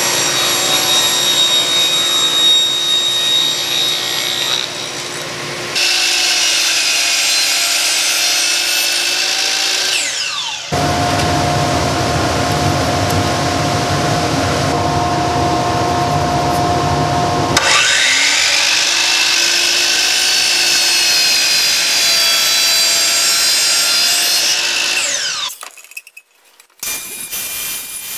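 Power saws cutting plywood sheets in several separate takes, mostly a table saw. Each cut has a steady blade whine and the sound of wood being cut. About two-thirds of the way through a motor spins up, and near the end it winds down.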